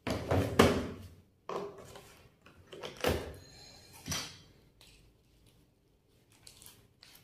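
Knocks and rattles of a blue plastic drill kit case being handled as bits and its flexible shaft extension are pulled from their moulded slots. A cluster of knocks comes in the first second, with further single knocks about one and a half, three and four seconds in.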